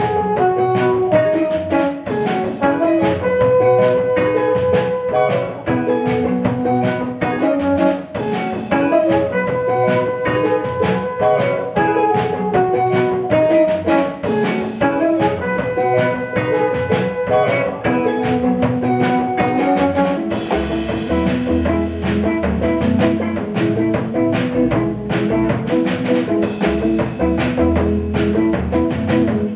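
A jazz quartet of drum kit, trombone, electric guitar and Bass VI playing live, the drums keeping a steady pulse under the melody. A heavier low bass line comes in about two-thirds of the way through.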